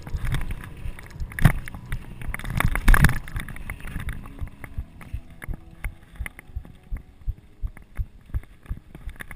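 Downhill mountain bike clattering over a dirt trail, heard from a camera on the bike or rider: tyres on dirt with chain and frame rattling. Two heavy knocks come about one and a half and three seconds in, then a lighter, quick rattle.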